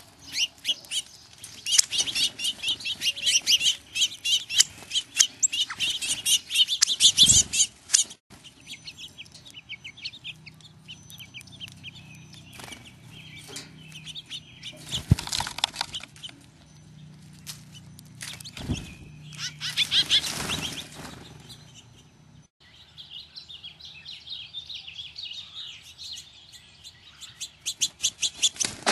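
Small birds at a feeder chirping rapidly and continuously for the first several seconds, then more sparsely, with two short flurries of wing flapping around the middle. Dense chirping picks up again near the end.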